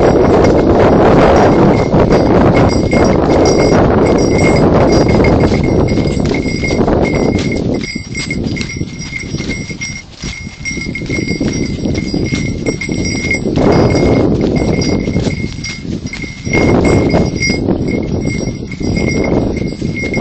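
Horse's hooves clip-clopping on a leaf-strewn dirt trail, heard from the saddle, with wind buffeting the phone's microphone, heaviest in the first several seconds. A thin, steady high tone rings faintly throughout.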